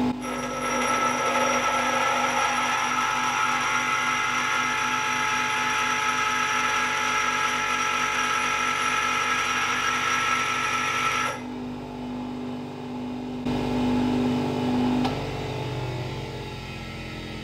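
Power grinder grinding a flat edge onto the steel flange of a tractor wheel stud, a loud rasping whine. The grinding cuts off about 11 seconds in, and the motor runs on for a few seconds before winding down.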